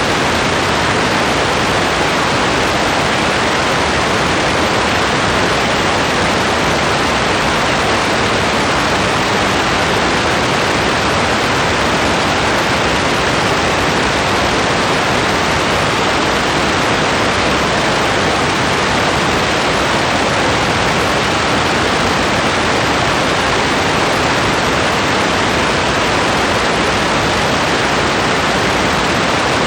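Rain falling steadily: a dense, even hiss with no single drops standing out.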